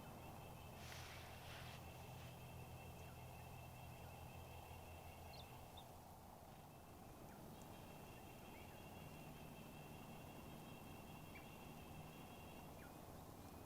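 Faint wild turkey calls: a brief burst of calling about a second in, then a few short, sharp notes scattered through the rest, over a steady thin high-pitched tone.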